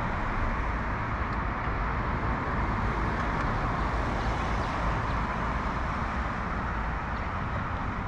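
Steady city road-traffic noise, an even wash with no single passing vehicle standing out.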